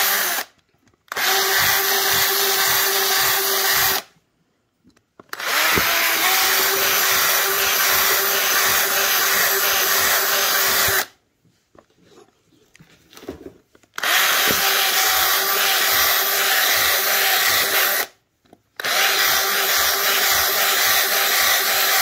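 Black & Decker cordless drill running in several stretches of a few seconds, stopping briefly between them, as it bores holes into a riding mower's rubber tire.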